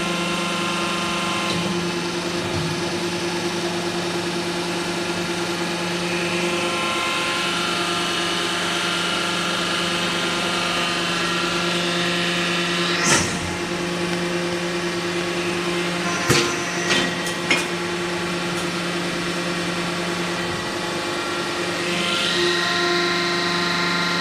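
A machine for cold-forming pipe tees running with a steady motor hum. There is one sharp knock about halfway through, and a quick run of three or four knocks a few seconds later.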